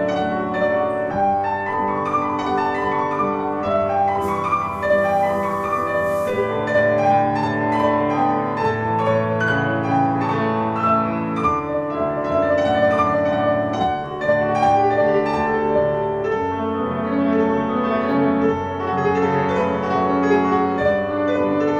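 Piano music, a flowing classical-style piece with many overlapping notes, playing throughout.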